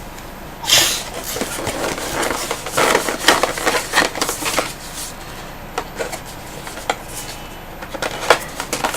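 Cardboard box and packaging being handled: a sliding rustle about a second in, then scattered light knocks and scrapes at irregular intervals.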